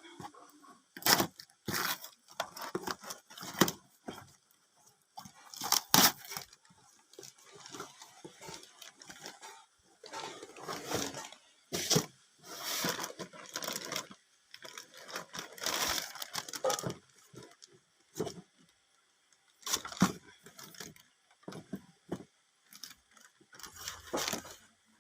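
Cardboard box and plastic packaging being torn open and handled: irregular tearing, rustling, crinkling and sharp knocks.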